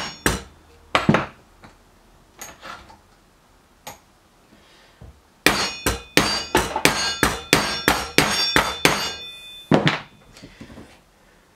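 Hammer blows on steel, trying to drive a seized bearing out of a Look Keo 2 Max pedal body; each strike clangs and rings. A couple of blows come first, then a quick run of about a dozen from around halfway and a last one near the end; the bearing does not shift.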